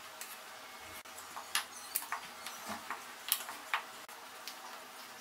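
Rolling pin rolling a thin disc of dough on a stone counter: soft handling noise with a scatter of light clicks and taps where the pin meets the counter.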